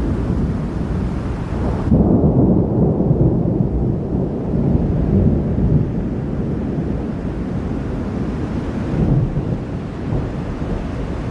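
Thunderstorm noise: a continuous low rumble of thunder mixed with wind, which changes abruptly about two seconds in and again near the end.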